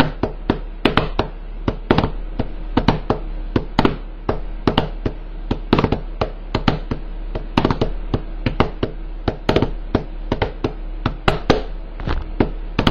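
Rapid, uneven knocking or tapping, about three to four knocks a second, over a steady low hum.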